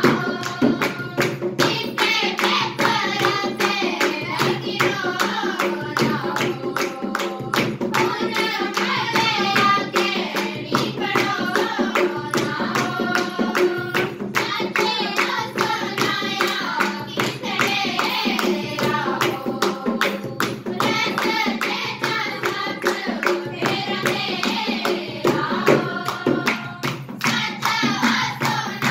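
Girls' voices singing a song to a steady beat of rhythmic hand-clapping.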